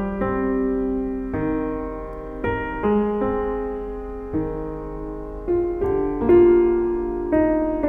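Slow, gentle background piano music, single notes and chords struck about once a second and left to ring.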